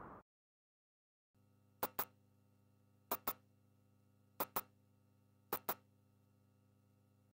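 Four pairs of sharp clicks, evenly spaced about 1.3 seconds apart, over a faint steady electrical hum that starts about a second and a half in.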